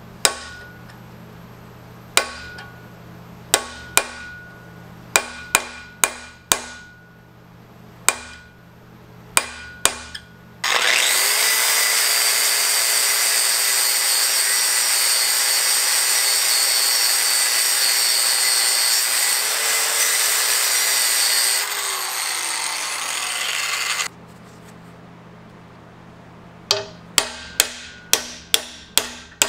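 Hammer blows on metal, about a dozen spaced strikes each with a short ring. Then a power tool runs steadily for about thirteen seconds with a whine, its pitch dropping a couple of seconds before it cuts off. Quicker hammering follows, about three blows a second.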